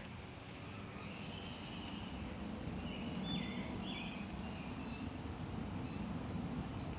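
Faint, drawn-out high bird calls in the middle seconds, over steady low outdoor background noise. This is the bird the recorder calls the weirdest sounding bird he has ever heard.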